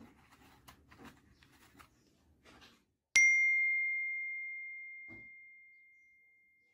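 Faint clicking and handling noise, then about three seconds in a single bell-like ding: struck once, ringing one clear tone that fades slowly over about three and a half seconds.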